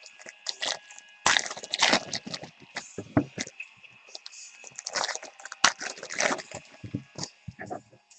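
Trading card pack wrappers and cards being handled: irregular crinkling, rustling and small snaps.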